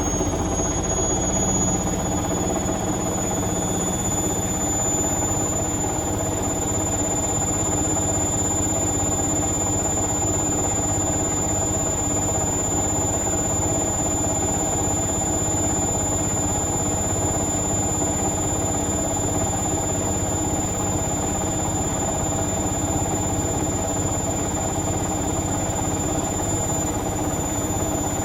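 Indesit Moon SIXL145 washing machine in its final 1400 rpm spin: the drum and motor run steadily, with a high squeal from the door seal rubbing. The high tone climbs a little in the first couple of seconds as the drum reaches full speed, then holds level.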